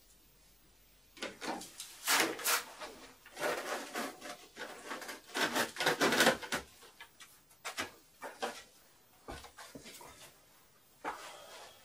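Wooden boards and scrap being handled in a pile: irregular wooden knocks, scraping and rustling, busiest in the first half, then a few sparser knocks and footsteps on the hard floor.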